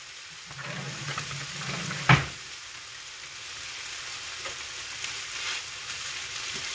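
Potato and turkey sausage hash frying in a pan with a steady sizzle, and a single sharp knock about two seconds in. Near the end a spatula stirs and scrapes through the hash.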